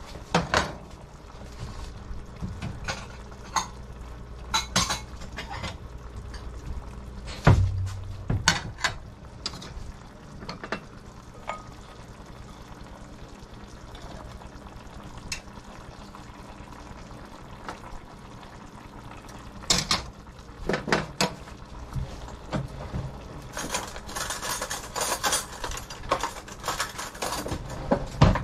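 Dishes clattering and a spoon scraping pan-fried corn out of a metal saucepan into a small bowl: scattered knocks and clinks, one heavy knock about seven seconds in, and a run of quick scraping near the end.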